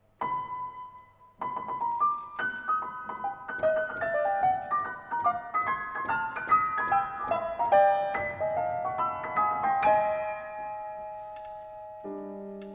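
Solo piano introduction to an art song: a single high note struck and left ringing, then quick repeated notes in the upper register that build into a busy figure, easing into held, ringing notes near the end.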